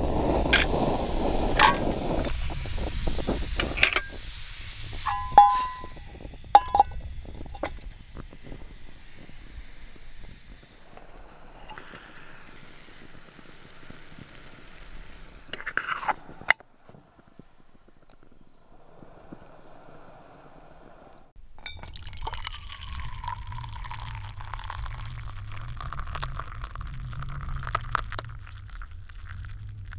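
Metal camp cookware clinking around a freshly lit spirit burner, with a few short ringing clinks early on. Near the end, hot berry drink is poured from the kettle into an enamel mug, a steady liquid pour.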